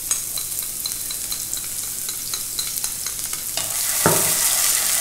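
Minced shallots and scallions sizzling in hot oil in a nonstick frying pan, with light clicks of chopsticks scraping them off a plate and stirring. The sizzle grows louder about three and a half seconds in as the rest goes into the oil and is stirred, with one sharp knock soon after.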